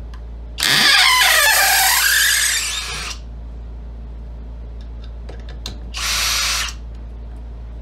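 Skil 20V brushless hammer drill/driver running under load as it turns a long screw in a wooden log: one run of about two and a half seconds with the motor pitch shifting, then a short burst about six seconds in.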